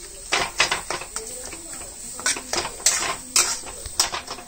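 Steel spatula stirring thick potato masala in a metal kadai, clinking and scraping against the pan in a quick, irregular series of sharp clicks.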